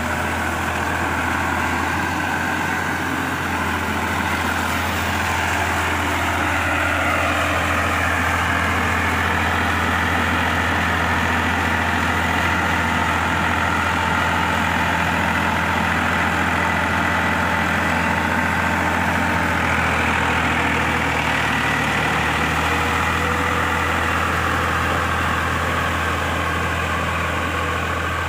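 Massey Ferguson 7250 DI tractor's three-cylinder diesel engine running steadily under load as it pulls a PTO-driven rotavator through wet paddy mud, with small shifts in pitch a few seconds in and again later on.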